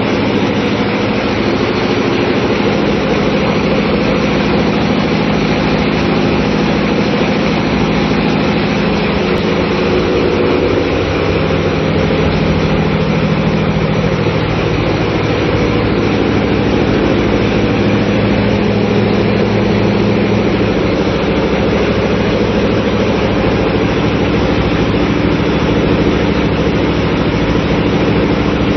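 Small oil tanker's engine-room machinery running: a loud, constant drone with several steady low hums layered over a dense mechanical noise.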